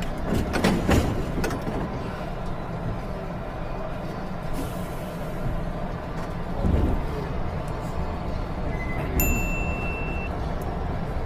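Subway train running, a steady low rumble heard inside the carriage, with a few clicks in the first second and a short high electronic tone about nine seconds in.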